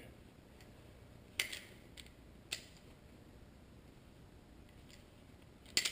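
A few short metallic clicks and scrapes from a tool screwing a rear brake caliper's piston back into its bore, with the sharpest click near the end.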